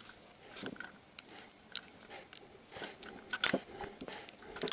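Faint, irregular light clicks, taps and rustling of hands and tools moving about a car engine bay, with no steady rhythm.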